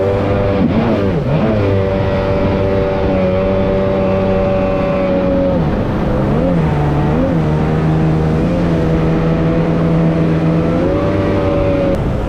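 Sea-Doo personal watercraft engine running at a steady cruise. Its pitch dips and recovers a few times as the throttle is eased off and back on, near the start and again about halfway through. It holds a slightly lower note before picking up again near the end.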